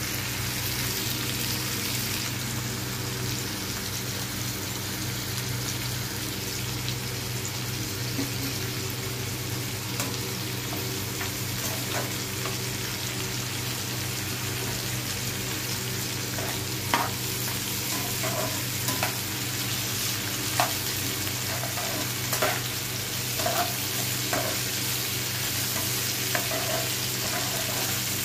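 Sliced onions sizzling in hot oil in a frying pan, over a steady low hum. From about halfway, a metal spatula stirs them, with short scrapes and clicks against the pan.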